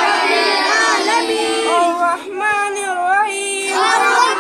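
Boys' voices reciting Arabic prayer aloud in a melodic chant, with a long held, wavering note in the second half.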